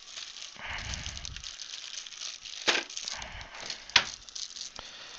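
Small metal dental instruments and parts being handled, with light clicks and rattling and two sharp clicks near the middle, the second one louder.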